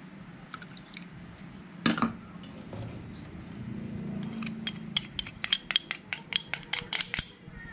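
Pineapple juice poured from a can into a glass bowl, with a single sharp clink about two seconds in. Then a metal spoon taps quickly against a small plastic cup, about five or six taps a second, knocking red chili powder into the bowl.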